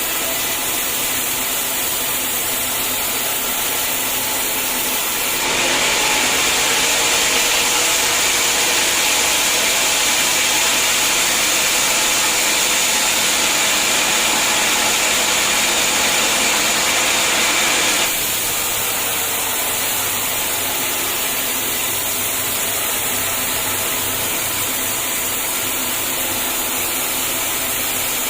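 Sawmill saw running steadily. From about five seconds in it grows louder and hissier for roughly twelve seconds as the blade cuts through a hard acacia log, then drops back to the unloaded running sound.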